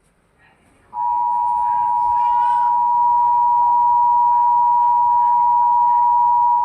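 Emergency Alert System attention signal: a steady two-tone alert tone just under 1 kHz. It starts about a second in, holds at a constant level for nearly six seconds and cuts off abruptly.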